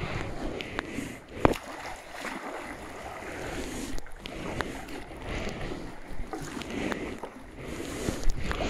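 Kayak paddle strokes: the double-bladed paddle dipping and splashing as water rushes along the plastic hull, with a few sharp knocks, the loudest about a second and a half in.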